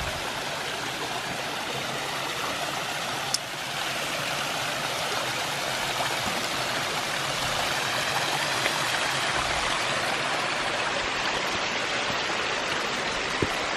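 Waterfall water rushing steadily over rock, with a single click about three seconds in.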